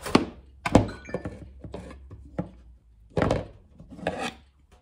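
Straight-cut aviation tin snips cutting galvanized sheet steel: a string of sharp snips and clicks as the blades bite through the metal. Near the end come two louder knocking rattles of metal tools and sheet on the bench.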